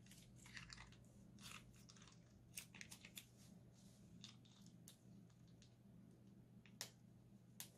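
Slime being squeezed out of a plastic piping bag: scattered soft crackles and small pops of the slime and the crumpling bag, with a few sharper clicks, the loudest near the end.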